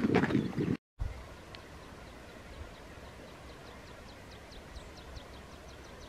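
Wind buffeting the microphone, cut off abruptly under a second in; then a yellowhammer singing, a fast run of short, repeated high notes that grows louder toward the end.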